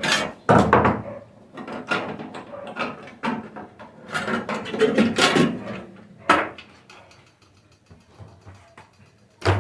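Tools and metal parts knocking, scraping and clattering inside an opened microwave oven as its magnetron is being worked loose. Sharp clicks come about six seconds in and again just before the end.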